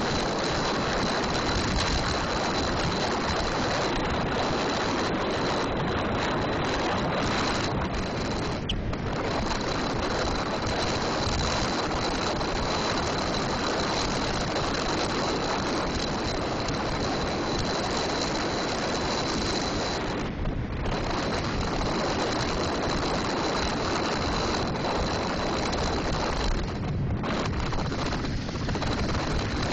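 Wind rushing over the microphone of a bicycle-mounted camera on a fast 7% downhill descent: a loud, steady roar of noise that thins briefly a few times.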